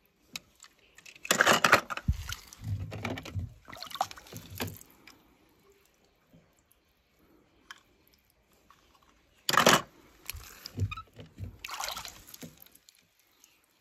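Water in a shallow plastic tub splashing and pouring off as a small die-cast toy car is dunked and lifted out, in two bouts, the second starting about nine and a half seconds in.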